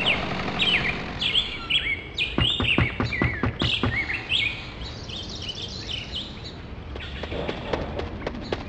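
Birds chirping and singing: many short whistled calls sliding up and down in pitch, with a run of sharp ticks a couple of seconds in and again near the end.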